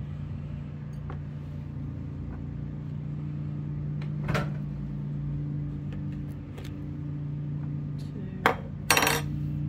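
Steady low hum with a few sharp clinks of a metal measuring spoon scooping brown sugar from a plastic tub and knocking it into a ceramic bowl: one about four seconds in, and two close together near the end, the last the loudest.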